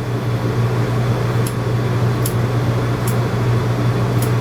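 Steady low mechanical hum, with four faint, sharp snips of grooming shears cutting a dog's ear hair, spaced about a second apart.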